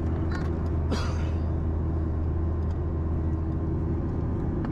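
Steady cabin noise of a Boeing 737-800 in flight: the low, even drone of its CFM56 jet engines and the airflow, with a steady hum underneath. A single short click about a second in.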